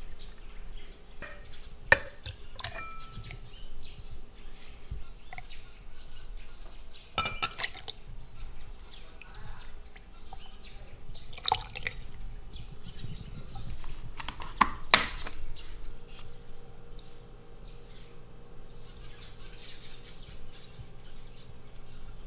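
A spoon, glass and ceramic bowls clinking about four times while tapioca pearls and brown sugar syrup are spooned into a tall glass, with syrup dripping and pouring through a metal strainer into the glass.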